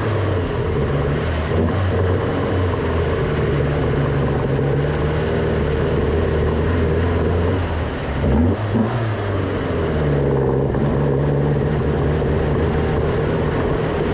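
Alfa Romeo Giulia Super's twin-cam four-cylinder engine running as the car drives, its pitch dipping about eight seconds in and then climbing again. This is an example of the intermittent poor running that the owner suspects is an ignition fault.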